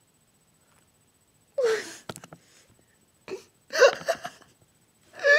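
A girl's loud, wordless wails: one falling in pitch about a second and a half in, then a short cry and another loud, breathy wail about four seconds in.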